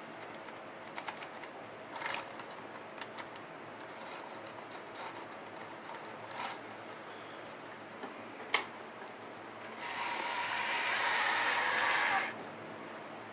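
AHM BL-2 HO-scale model locomotive with a freshly rebuilt motor running on a test track: a steady faint motor hum with scattered sharp clicks. About ten seconds in it gets much louder for a couple of seconds, then drops back suddenly.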